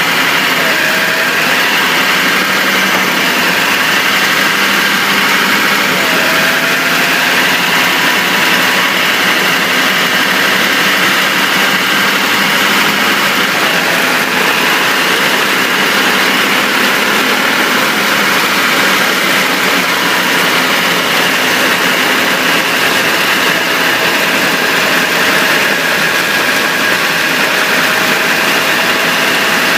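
Steady driving noise from beneath a moving Chevrolet Silverado 2500HD pickup, picked up at the spinning driveshaft where it leaves the transfer case: a loud, even rush of road and wind noise with a thin whine that drifts slightly in pitch as the speed changes. No knock is heard.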